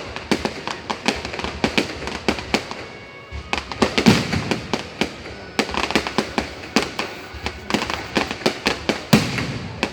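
New Year fireworks display: aerial shells bursting in a dense, irregular string of sharp bangs, several a second, with two louder bangs about four and nine seconds in.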